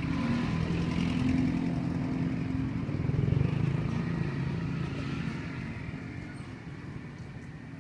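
A motor vehicle engine running close by, a steady low hum that fades away over the last few seconds.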